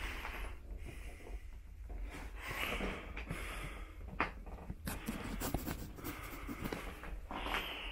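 A person breathing heavily close to the microphone, a breath every second or so, with clicks and rustling of things being handled in the middle.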